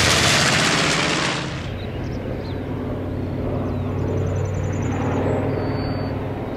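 B-25 Mitchell's twin Wright R-2600 radial engines just after a low pass overhead: a loud roar that drops away about a second and a half in, leaving a steady propeller drone as the bomber climbs away.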